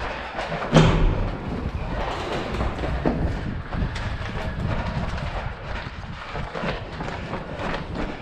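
Running footsteps on hard floors picked up by a head-mounted camera, with one loud thump about a second in as a door is pushed through.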